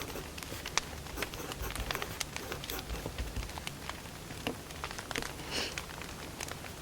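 Burning firewood crackling, with many irregular sharp pops over a low steady rumble. A longer, hissier pop comes about five and a half seconds in.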